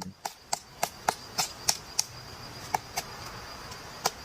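Woodpecker pecking into a tree trunk, chiselling out a nest hole: sharp knocks about three or four a second, thinning to a few spaced strikes after about two seconds.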